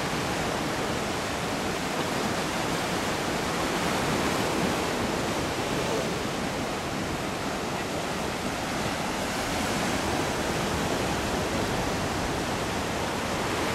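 Ocean surf breaking and washing against a rocky lava shoreline, a steady rushing noise with no distinct crashes.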